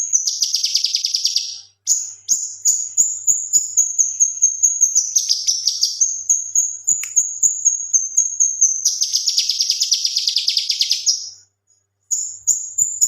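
Male cucak kinoi singing: a run of high, evenly repeated chirps, about four a second, broken three times by rapid, lower chattering trills (the 'tembakan' bursts), the longest about two seconds. It pauses briefly near the end, then the chirps start again.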